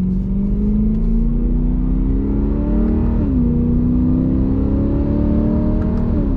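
BMW E90 M3's 4.0-litre V8 breathing through a full Active Autowerks exhaust (high-flow cats, X-pipe and rear section), heard from inside the cabin as the car accelerates through the gears. The engine note rises steadily, drops sharply at an upshift about three seconds in, rises again, and drops at a second upshift near the end, over a low rumble.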